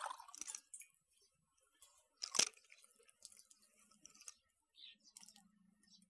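Faint sounds of someone eating a meal: scattered small clicks and rustles of food and dishes being handled, with one sharper clink about two and a half seconds in.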